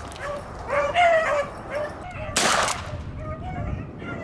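Rabbit hounds baying as they run a rabbit, with a single .410 shotgun shot about two and a half seconds in, the loudest sound here.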